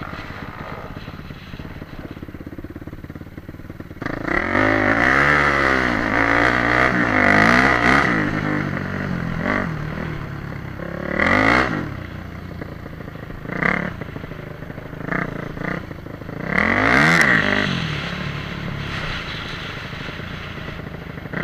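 Motorcycle engine revving hard, its pitch rising and falling again and again, loudest from about four to eight seconds in, with shorter bursts of throttle after that and another strong rev near the end.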